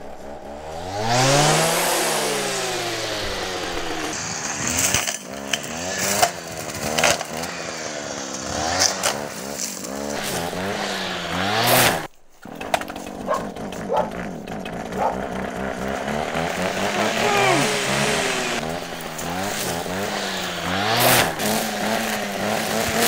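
Petrol brush cutter engine revving up and down over and over as it cuts grass, with clicks over the engine sound. The sound drops out for a moment about twelve seconds in.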